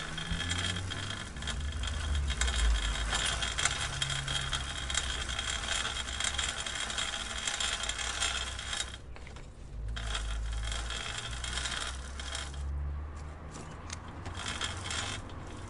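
Bicycle chain and gears clicking: a fast, dense run of small metallic clicks over a low rumble. The clicks drop away briefly about nine seconds in and grow sparser over the last few seconds.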